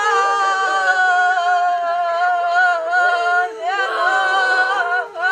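A woman wailing in grief, a sung-sounding mourning lament: one long cry that slowly falls in pitch for about three and a half seconds, then a second held cry with a wavering pitch.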